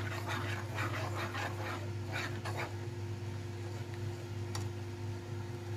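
Metal spoon stirring and scraping a steel pan of simmering milk and milk powder as it cooks down into khoya: repeated soft scrapes, busiest in the first half and fainter later, over a steady low hum.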